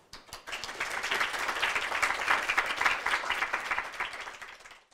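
Audience applauding, many hands clapping together. It builds quickly to full strength, then thins out and stops abruptly near the end.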